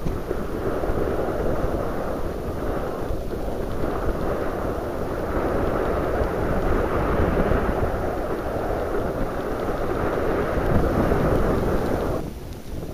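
Wind buffeting the microphone aboard a Moody 33 sailing yacht under sail in a fresh breeze, a loud, steady, low rush with sea noise mixed in. It drops away suddenly near the end.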